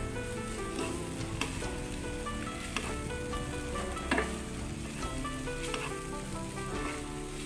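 Pancit canton noodles sizzling in a non-stick frying pan as they are stir-fried and tossed with a wooden spatula and a fork, with a few sharp taps and scrapes of the utensils against the pan.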